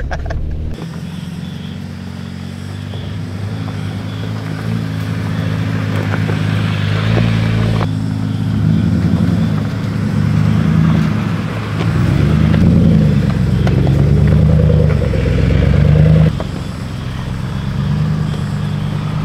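Off-road vehicle engines, a Ford F-150 pickup followed by a Jeep Wrangler, pulling slowly up a rough dirt trail, the low engine note rising and falling with the throttle.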